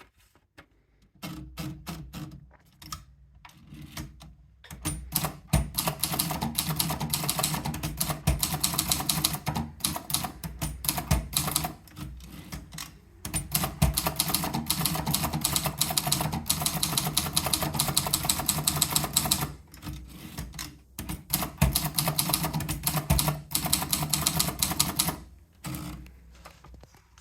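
Torpedo model 10-50 typewriter being typed on. A few slow keystrokes come first, then long fast runs of clacking keys broken by brief pauses, and the typing stops near the end.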